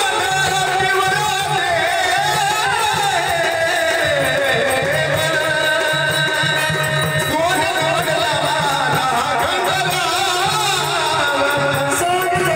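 Marathi jagran gondhal devotional folk music: a sung, wavering melody over a steady, regular drum beat.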